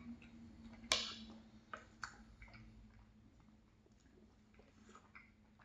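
A person eating ice cream dessert, faint. A sharp click comes about a second in, then a few softer clicks and quiet chewing.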